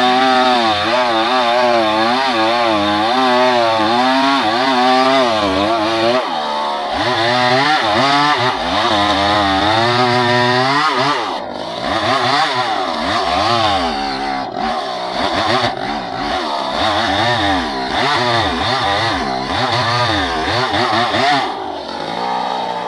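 Chainsaw running while cutting wood, its engine pitch wavering up and down repeatedly as the chain loads and frees in the cut.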